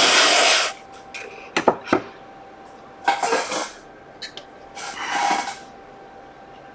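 Aerosol freeze spray hissing in three short bursts onto a powered circuit board, the first the loudest, with a few sharp clicks between them. The spray is being used to find the component that heats up from a short on the board's supply line.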